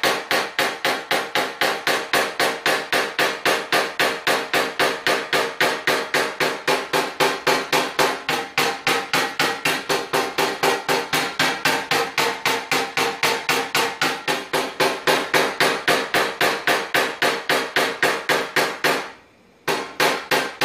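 Quick, light hammer taps on a knockdown punch against a metal car fender, about four a second, with a faint ring from the panel. They stop briefly near the end, then start again. The taps are knocking down the raised ridge and crease around a dent.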